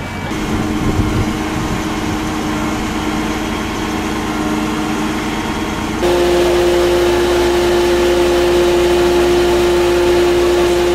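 Engines running steadily at idle, a constant drone. At a cut about six seconds in the drone becomes louder and a little higher in pitch.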